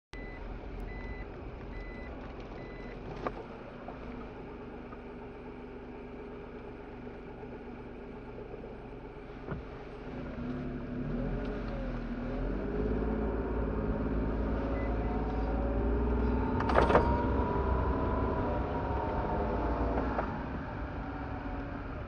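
Car engine and road noise heard from inside the cabin as the car pulls away, with the engine note rising and falling as it gets louder from about ten seconds in. A few short electronic beeps come near the start, and a single sharp knock comes about two thirds of the way through.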